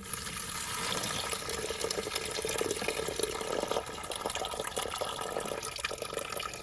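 Leftover toilet-tank water draining through the fill-valve hole in the tank bottom and pouring into a bowl below, a steady splashing stream with separate drips toward the end.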